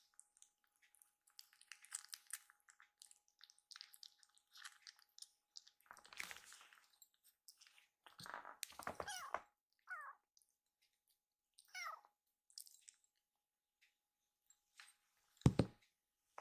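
Kitten eating from a food bowl, lapping and chewing with many small wet clicks, then a few short high mews between about eight and twelve seconds in. A single dull knock near the end.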